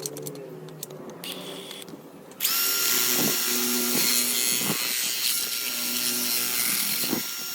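A handheld electric power tool starts about two and a half seconds in and runs steadily for about five seconds with a constant high whine, then stops just before the end.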